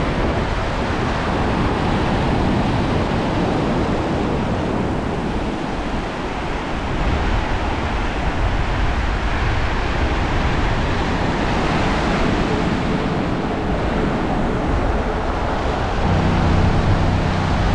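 Ocean surf washing on the beach, a steady rushing noise with wind on the microphone. A low steady hum joins near the end.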